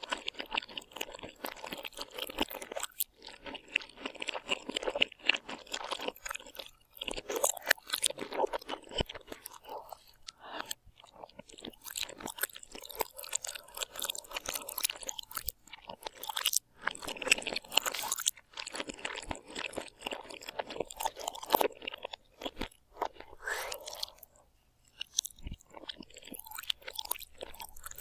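A person biting and chewing crunchy food close to the microphone, with irregular crunches and brief pauses between mouthfuls.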